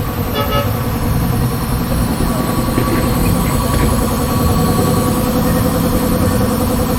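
Engine idling steadily with a low rumble.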